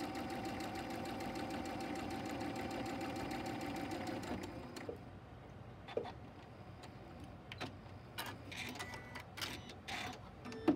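Domestic sewing machine stitching steadily, stopping about four and a half seconds in. After it stops, a few scattered short clicks and taps follow.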